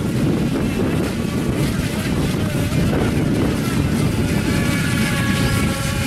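Wind buffeting the microphone over open water, with the faint steady whine of FT007 remote-control speedboats' small electric motors rising out of it in the second half.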